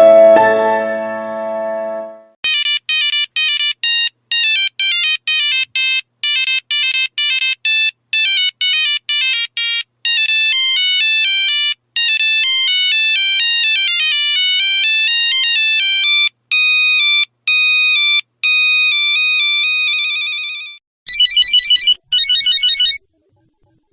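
Nokia mobile phone ringtones: a piano-like tune fades out in the first two seconds, then a bright electronic melody of short beeping notes plays, with longer held notes from about halfway. Near the end come two short bursts of a warbling trill ring.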